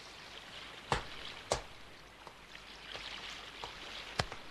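Footsteps on a hard floor, two steps about a second in and another near the end, over a steady hiss.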